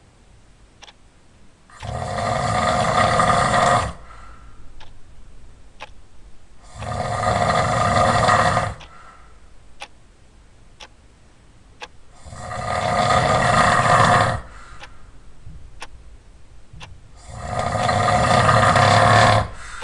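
Loud snoring: four long, rasping snores, each about two seconds, coming roughly every five seconds. Faint ticks sound in the quiet gaps between them.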